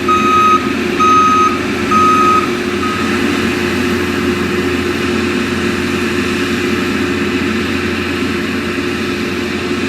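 Skid steer's engine running steadily while it works the ground, its reversing alarm beeping about once a second for the first three seconds as the machine backs up, then stopping.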